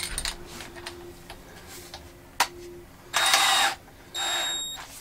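Power drill being readied with a square-drive bit: a few small clicks as the bit is fitted in the chuck, then the drill is run in two short bursts of about half a second each, the second with a steady high whine.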